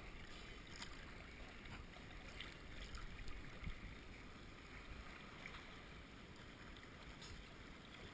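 Faint sea water lapping and small splashes at the surface, with scattered little drips and sloshes.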